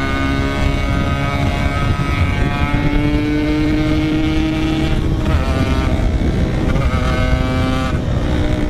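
Yamaha RX-King 135cc two-stroke single-cylinder motorcycle engine under way, with a steady exhaust note. Its pitch climbs slowly for a few seconds, breaks off and drops about five seconds in, then shifts again near the end.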